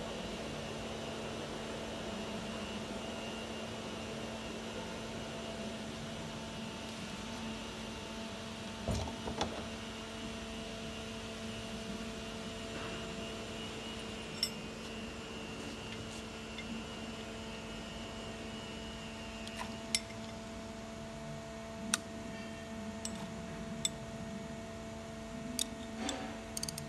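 Steady hum with a few fixed tones, broken by short metallic clinks of wrenches and a socket being handled and fitted onto an alternator's freewheel pulley; the clinks come more often near the end.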